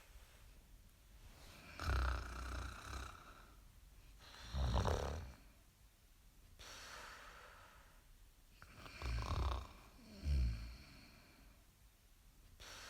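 Snoring in a slow breathing rhythm: four loud snores, the last two close together, with softer breathy exhales between them.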